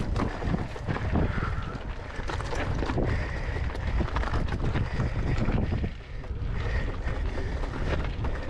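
Wind rumbling on the microphone while an e-bike climbs a steep rocky path. A faint high whine from its Bafang BBSHD mid-drive motor comes and goes under load, over scattered knocks and rattles from the bike on the stones.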